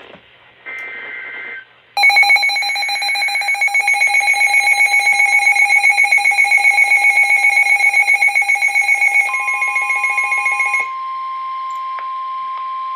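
Emergency Alert System signalling: a short burst of screechy digital SAME header data, then the loud, steady two-tone EAS attention signal. Near the end a single steady tone, the Weather Radio warning alarm tone, joins in and carries on alone after the attention signal cuts off.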